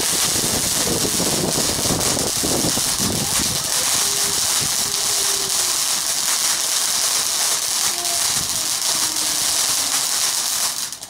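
Ground fountain firework spraying sparks: a loud, steady hiss that holds at one level and cuts off shortly before the end.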